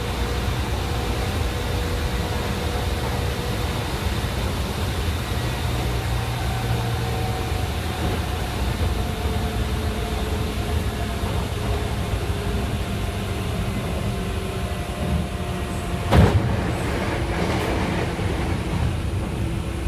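Running noise inside a Hanshin Jet Car armature-chopper electric train: a steady low rumble with the chopper's characteristic hum and whining tones that slowly fall in pitch. A single sharp clunk about sixteen seconds in.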